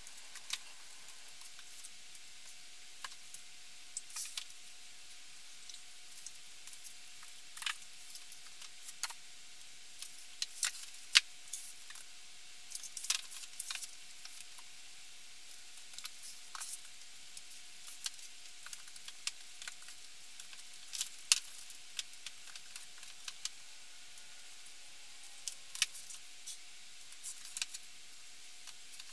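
Books being handled, set down and slid onto a bookshelf: scattered light knocks and clatters at irregular times, over a faint steady hum.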